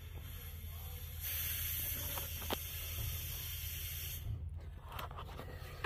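Compressed air hissing into a homemade smoke machine that pushes smoke into the engine intake to find vacuum leaks. The hiss starts about a second in and stops just after four seconds, over a low steady hum.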